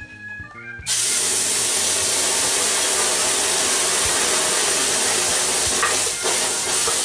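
Blended chile de árbol salsa poured from a blender jar into a hot, oiled stainless-steel skillet, starting about a second in with a sudden loud, steady sizzle as the sauce hits the hot oil.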